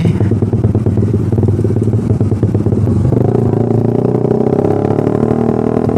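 Suzuki Satria F150's single-cylinder engine, breathing through a WRX racing exhaust, pulling at low revs and stuttering and bogging as it is throttled ('brebet banget, susah digas'). About three seconds in the note changes to a higher, steadier tone. The owner puts the stutter down to the stock ECU and ignition timing being untuned for the free-flowing racing exhaust.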